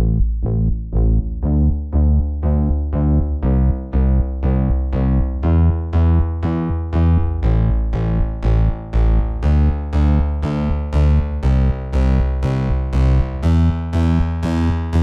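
Background electronic music: synthesizer keyboard notes struck about twice a second over a steady bass line.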